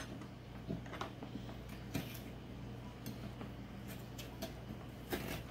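Metal spoon scraping seeds and pulp out of a halved honeynut squash, with a few soft scattered taps and clicks.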